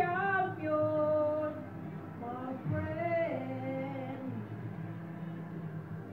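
A voice singing a few long, sliding held notes, which stop about four seconds in, over a steady low hum.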